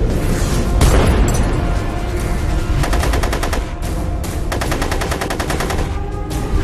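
Two bursts of rapid fully automatic rifle fire, the second longer, about three and four seconds in, over theme music, with a single sharp hit about a second in.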